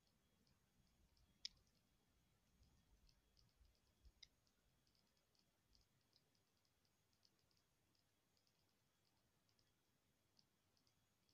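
Near silence with faint, scattered clicks, sharpest about one and a half seconds in and again around four seconds in.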